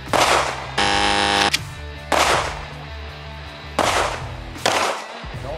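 Four pistol shots, sharp cracks spaced roughly one to two seconds apart, over steady background music, with a loud buzzing tone lasting under a second shortly after the first shot.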